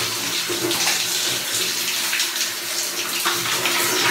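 Shower water running steadily and splashing on hair and body as shampoo is rinsed out.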